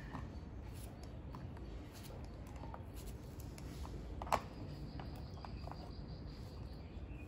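Quiet background hiss with scattered faint clicks and one sharp tap about four seconds in, from watermelon pieces being handled on a plastic plate. A faint steady high tone comes in about halfway.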